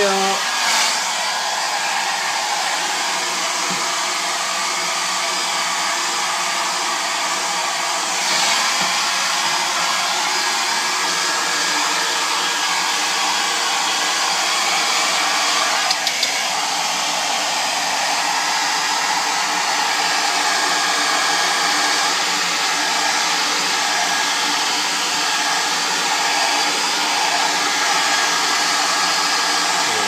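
Hair dryer running steadily: a constant rushing blow with a faint motor hum underneath.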